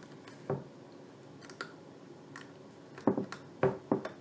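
X-Acto hobby knife trimming fly-eye vinyl mesh film against a wooden table: scattered light clicks and taps, a soft knock about half a second in, and a few sharper clicks in quick succession about three seconds in.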